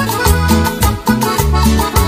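Latin tropical dance-band music, instrumental: a bouncing bass line under a steady percussion beat, with a melody line on top.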